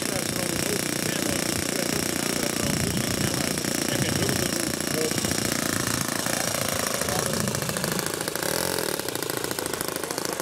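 Model aircraft combustion engine running with a rattling buzz, its pitch gliding down in the second half.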